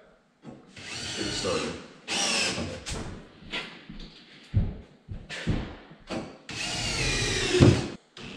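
Cordless drill driving screws through a metal strip into the wall, in three runs of about a second each, the motor's pitch rising as each run starts. A few short knocks come between the second and third runs.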